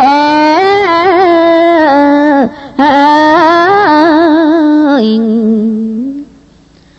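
Khmer smot, Buddhist chanted verse: a single voice sings a slow, heavily ornamented melody, wavering on held notes. It breaks briefly about two and a half seconds in and trails off about six seconds in.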